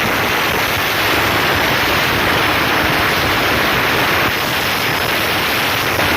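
Homemade 12-volt angle grinder, built on a 775 DC motor, with its disc cutting into material: a loud, steady, harsh hiss that holds throughout.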